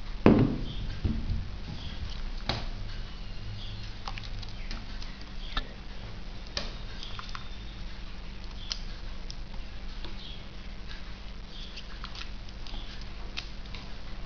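Handling noise from a small Divoom Iris-02 plastic speaker cube being held and turned in the hand. A thump comes about a quarter second in, a smaller one near a second, then light clicks and scratches of plastic and cable, over a steady low hum.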